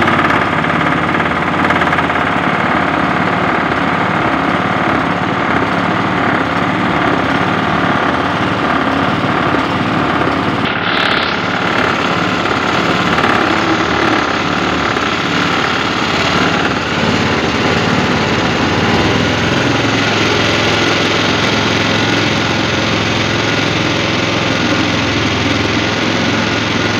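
Small gasoline engine running loud and steady, driving a cassava grater that grinds peeled cassava into pulp.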